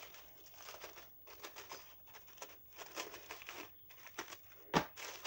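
Small scissors cutting along the edge of a plastic poly mailer bag, the thin plastic crinkling in irregular bursts, with one sharper, louder crackle near the end.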